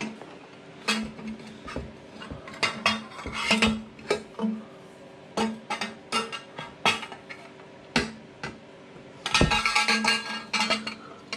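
Stainless steel Yoshimura RS2 header pipe clinking and knocking against the ATV's frame and engine as it is worked into place by hand. The metallic clinks come one after another, busiest about nine to ten and a half seconds in.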